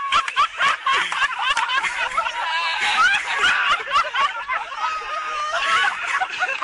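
Several young men laughing hard together in rapid, choppy fits of giggling and snickering.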